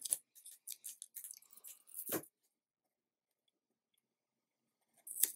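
Light paper-and-card handling as a paper spine strip is lined up on a notebook: a few faint rustles and taps, the loudest about two seconds in, then quiet until one short, sharper crackle near the end.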